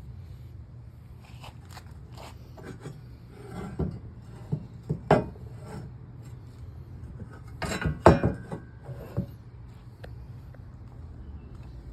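Scattered knocks, clinks and scrapes of objects being handled and set down, in two clusters about four and eight seconds in, the loudest ringing briefly, over a steady low hum.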